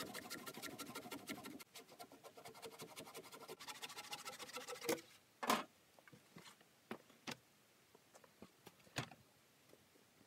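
Handsaw cutting through an old Douglas fir beam in fast, even strokes, which stop about five seconds in. Two sharp knocks follow as the cut ends, then a few faint clicks.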